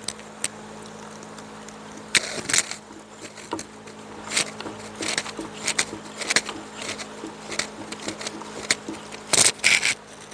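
A strand of soaked chair cane being laced by hand through the holes of a chair seat: a series of short swishes as it is drawn through and pulled snug, the loudest two close together near the end. A steady low hum sits underneath.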